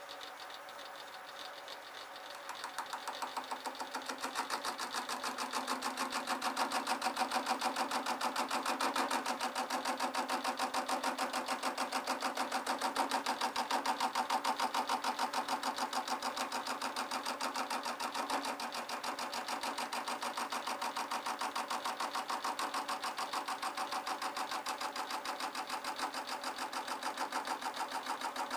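Metal lathe rounding off the edge of a roughly cut half-inch steel plate that is clamped and driven between two tubes. The tool cuts with a fast, regular ticking that builds up over the first few seconds and then holds steady.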